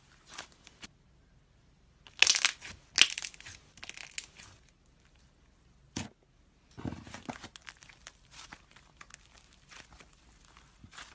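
Slime squeezed and pressed by hands, crackling and popping in short bursts, with one sharp snap about six seconds in and a run of softer, denser crackles after it.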